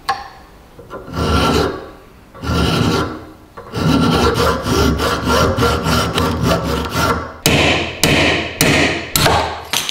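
Hand file scraping across the rusty iron crank handle held in a vise: two slower strokes, then a fast run of short back-and-forth strokes, then sharper strokes about every half second near the end.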